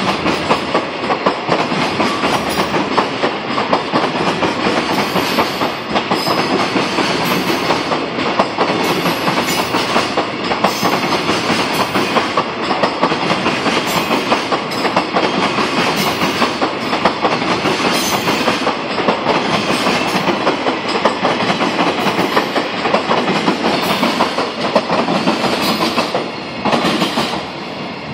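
Container freight train's flatcars rolling past as the train pulls out, wheels clattering steadily over the rail joints with many sharp clicks. The clatter drops off near the end as the last wagons pass.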